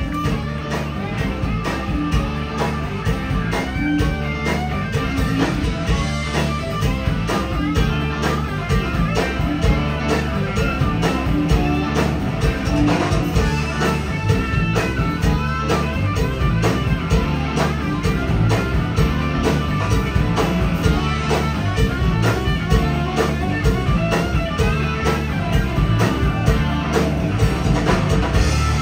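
Live blues-rock band playing an instrumental stretch without vocals: electric guitars over electric bass guitar and a drum kit, with a steady beat.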